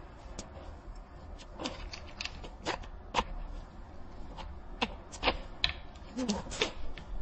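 Small hard parts being handled: a dozen or so irregular clicks and light taps, with a short squeak about six seconds in.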